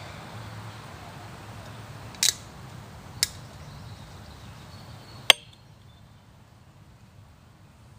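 Three sharp clicks, the last the loudest, over steady low background noise that drops away after the third click.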